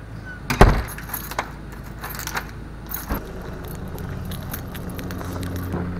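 A bunch of keys jangling in a door lock as it is worked open, with a sharp clack about half a second in and a few lighter jingles and clicks over the next few seconds, over a steady low hum.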